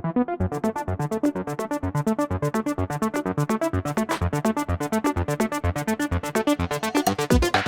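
Electronic dance music: a fast, pulsing synth pattern with a steady beat, building toward a drop.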